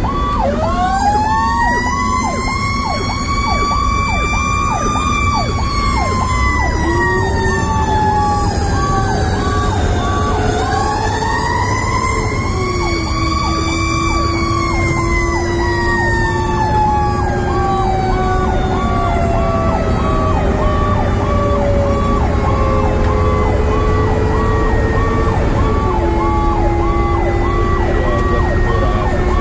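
Fire engine siren heard from inside the cab: a wail that rises for about five seconds, falls, rises again about ten seconds in, then slowly falls away. Under it a short electronic tone repeats about once or twice a second, over the truck's steady road rumble.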